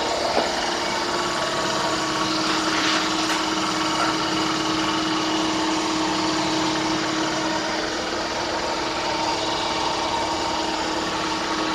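Handheld electric power tool running steadily, its motor holding a constant hum over a hiss of air.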